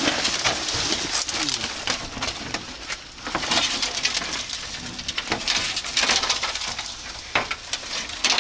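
Crunching and rustling of dry leaf litter, with scattered clicks and knocks as a rusty corrugated metal sheet and woodland debris are lifted and handled.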